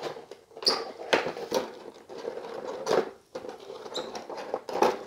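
Clear plastic blister-tray packaging being peeled back and handled, crackling and crinkling in irregular bursts.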